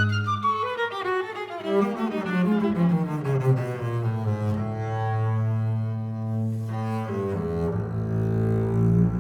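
Viola and double bass bowing a slow passage: the bass holds long low notes under a stepwise falling line.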